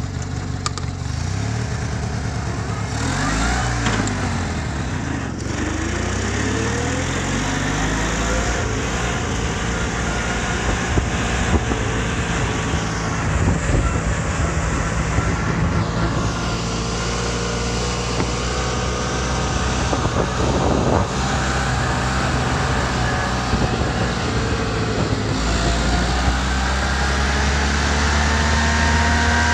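Westwood ride-on mower's engine pulling away and accelerating hard, its pitch climbing over the first several seconds, then running flat out at speed. About three-quarters of the way through it gets louder and the pitch climbs again.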